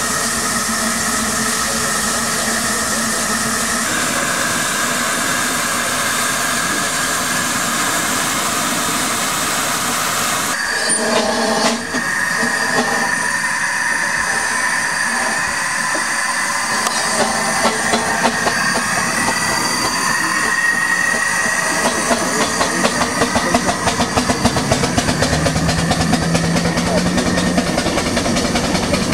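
5/8-scale live steam traction engine running, with a steady hiss of steam and the clatter of its valve gear. In the second half the exhaust beats come in a quick even rhythm.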